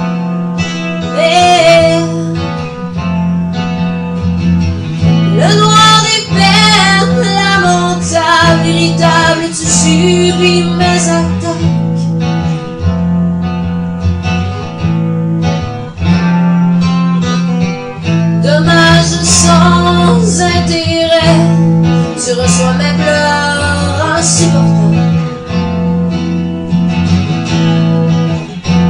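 A song: a woman singing over guitar accompaniment, with a steady repeating low line underneath.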